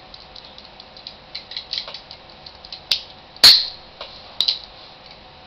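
1911 pistol's steel parts being worked by hand: a run of small metal clicks, then a sharp click about three seconds in and, half a second later, a loud, ringing metallic snap, with another click a second after that.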